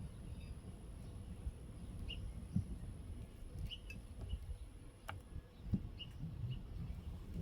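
Scattered short, high bird chirps, about half a dozen, over a steady low outdoor rumble, with a few soft knocks.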